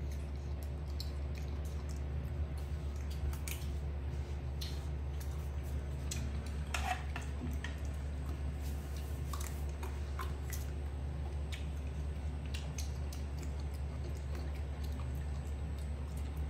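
Small irregular clicks and crunches of a young monkey chewing and biting slices of fruit, over a steady low hum.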